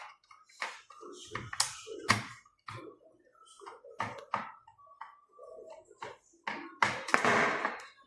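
Irregular clicks, taps and knocks from the plastic parts of a vacuum cleaner's floor brush being handled and worked apart, with a noisier scraping sound lasting about a second near the end.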